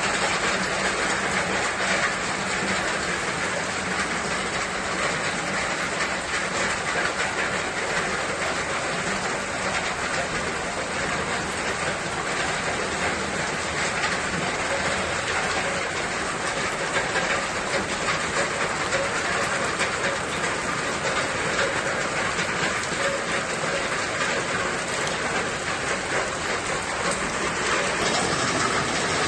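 Steady rain, an even hiss with a dense patter of drops that holds unchanged throughout.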